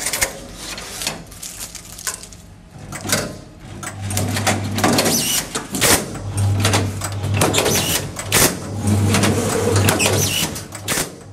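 Signode Predator 12 SS Auto automatic strapping machine working through its strapping cycles. Its motor hums low in spells of a second or two as each strap is fed and tensioned, and sharp clacks and knocks come as straps are sealed and cut and the carton is handled on the steel table. It goes quieter for a couple of seconds early on.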